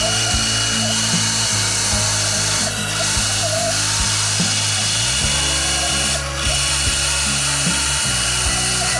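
Benchtop bandsaw running and cutting through a wooden board, a steady saw noise that eases briefly about six seconds in.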